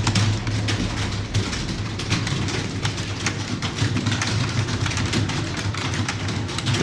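Computer keyboard keys typed in a quick, uneven patter of clicks, over a steady low hum.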